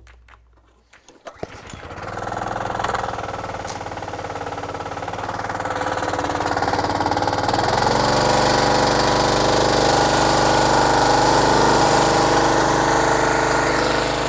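Small gasoline engine on a pressure washer being started; it catches about a second and a half in and settles into a steady run. About eight seconds in the note shifts and gets louder as the wand starts spraying and the pump takes load.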